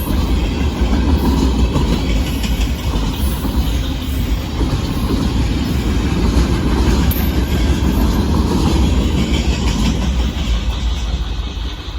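Freight train cars rolling past close by: a steady, loud rumble that begins to fade in the last second.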